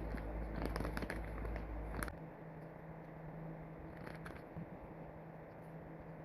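Hands handling album packaging: crinkling and light clicks of plastic and paper, busiest in the first two seconds and again briefly about four seconds in, over a low hum that stops about two seconds in.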